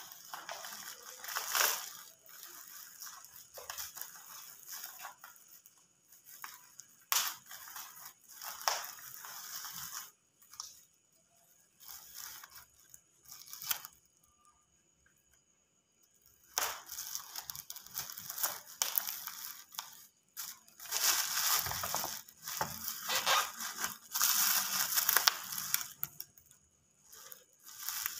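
Black plastic parcel wrapping and packing tape being cut and pulled open by hand: irregular crinkling and tearing of plastic, with a few short pauses, busiest and loudest in the second half.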